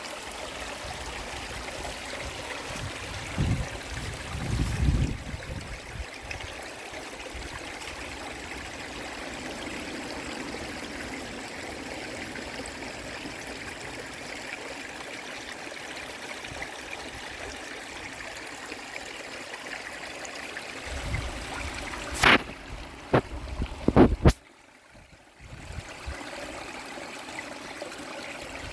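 Shallow river water flowing and trickling steadily. A few low bumps come about four seconds in and again near the end, with some sharp knocks among the later ones, and the sound drops out briefly just after them.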